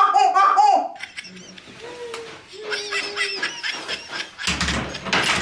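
Laughter in repeated short bursts for the first second, then softer vocal sounds. About four and a half seconds in comes a loud burst lasting about a second as a wooden door is pushed shut.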